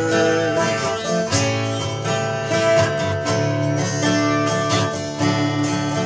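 Yamaha 12-string acoustic guitar playing an instrumental passage of chords, with no singing.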